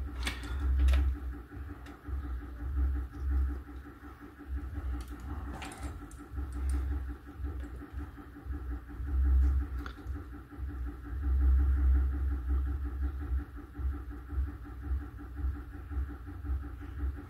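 Low, uneven rumble with a faint steady hum under it and a few light clicks of small tools and wire being handled while a wire is soldered to a connector pin.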